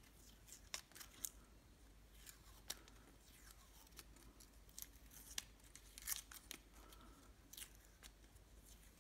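Protective film being slowly peeled by hand off a Bahtinov focusing mask: faint, scattered crackles and ticks.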